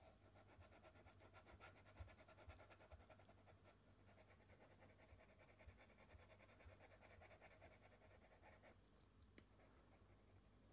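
Near silence: faint room tone with a steady low hum and a faint, rapid buzzing that stops about three-quarters of the way through.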